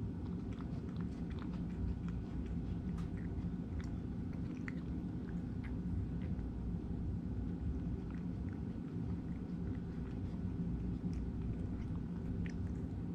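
A cat chewing its food, with many small irregular crunching clicks, over a steady low hum.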